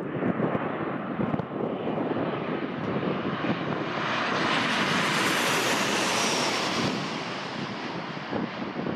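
Twin-engine jet airliner on final approach passing low overhead: the engine noise builds to a loud rush about four seconds in as it passes over, then fades away behind. Wind buffets the microphone throughout.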